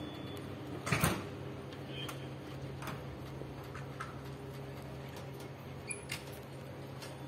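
Passenger train coaches rolling slowly past over a steady low hum, the wheels knocking over rail joints now and then. The loudest is a double knock about a second in, and another pair of knocks comes near the end.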